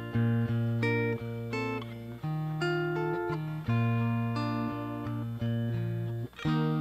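Clean electric guitar playing an instrumental passage of ringing chords, a new chord struck every half second to a second.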